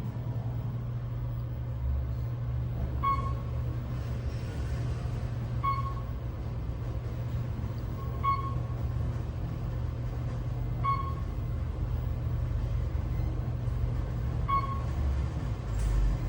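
Otis Elevonic 411 elevator car travelling between floors: a steady low hum from the ride, with a short beep each time the car passes a floor. There are five beeps, the first four about two and a half seconds apart and the last a little later.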